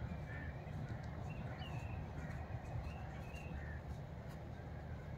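Faint outdoor ambience: a steady low rumble with short bird calls scattered through it.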